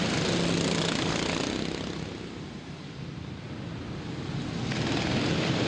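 A pack of nearly stock racing lawn mowers running hard at the start of a race. The engines fade about halfway through and then swell again as the field comes back around.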